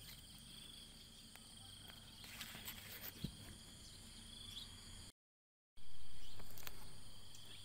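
Insects chirring steadily in a high, even buzz. About five seconds in the sound cuts out completely for half a second, then comes back with a louder sound that fades over the next two seconds.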